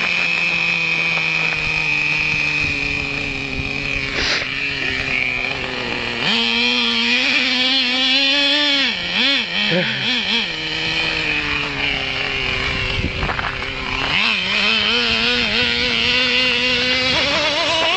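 Traxxas T-Maxx RC monster truck's small two-stroke nitro engine running at high revs. Its pitch holds steady, then wavers rapidly up and down as the throttle is blipped, a few seconds into the middle and again near the end.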